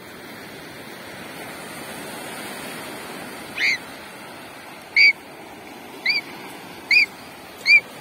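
Small waves washing over sand, swelling a couple of seconds in. From about three and a half seconds in, a crow caws five times, about once a second, each short caw louder than the surf.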